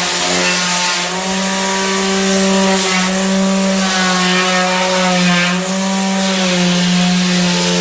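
Electric sander running: a steady motor hum with a rasping hiss over it. The pitch wavers slightly a couple of times.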